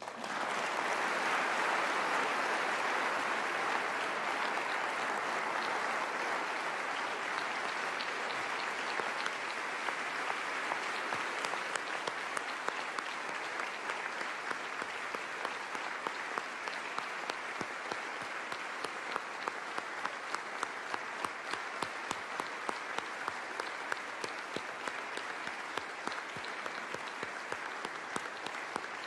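Large audience applauding in a standing ovation. The clapping starts at full strength at once and eases slightly, with single nearby claps standing out more clearly in the second half.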